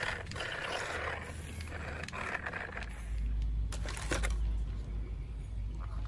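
A small toy electric gear motor whirring. About three seconds in, a deep low rumble with a few clicks takes over.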